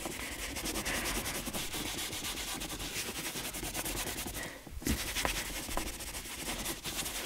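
Cotton towel rubbing briskly over a leather armrest, buffing off dried shoe polish, with a brief pause about four and a half seconds in.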